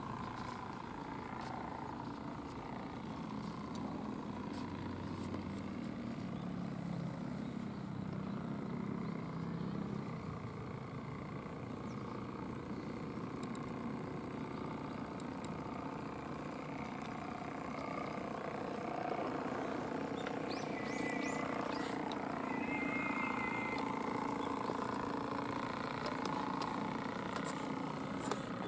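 A model steam launch's Saito steam engine running steadily as the boat cruises on a pond, heard from a distance under a steady outdoor background. A few short high chirps come about two-thirds of the way in.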